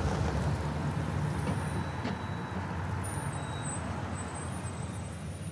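A car driving away, its engine and tyre noise a low steady rumble that slowly fades as it pulls off into the distance.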